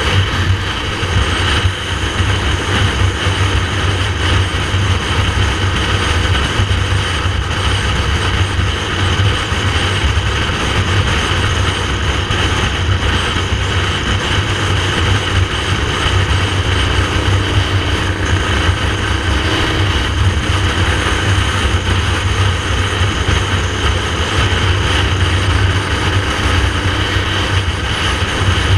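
Motorcycle engine running at a steady cruise on the open road, under heavy wind noise on the microphone.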